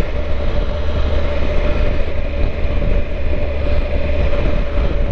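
Triumph Tiger 1200 three-cylinder motorcycle riding at a steady pace, engine running with a constant tone under heavy wind rumble on the microphone.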